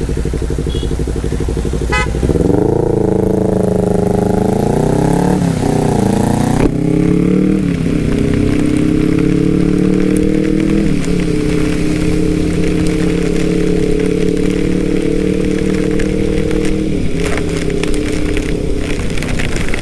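Yamaha Aerox 155 scooter's single-cylinder engine idling, then revving as the scooter pulls away about two seconds in. Its pitch rises and falls for a few seconds, then settles to a steady note at cruising speed, over the hiss of heavy rain and spray.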